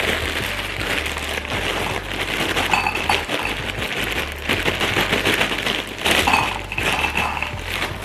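A plastic bag of frozen broccoli crinkling as it is opened and shaken, with hard frozen florets clattering into a ceramic bowl.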